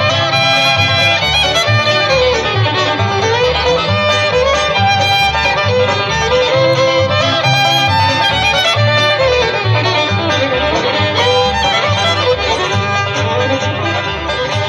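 Background music: a lively fiddle tune over a steady, rhythmic bass line.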